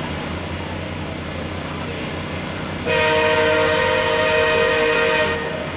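MARC commuter train's horn sounding one long blast of about two and a half seconds, a steady chord of several notes, starting about three seconds in over the train's steady low rumble.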